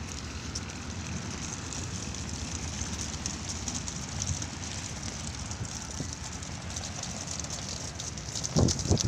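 Wind rumbling on the microphone, with faint crackling throughout; it gets louder and gustier near the end.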